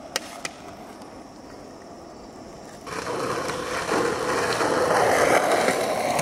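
Skateboard wheels rolling on pavement. A few light clicks come early. About three seconds in, a louder rolling sets in and grows steadily louder.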